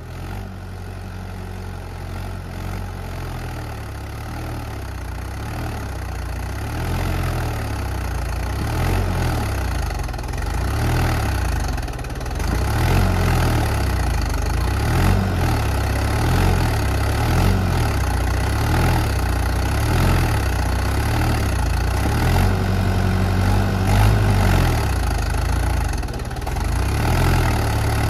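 Swaraj 843 tractor's diesel engine running under load while the tractor is stuck in deep mud. It grows louder over the first ten seconds or so, then rises and falls repeatedly as it labours.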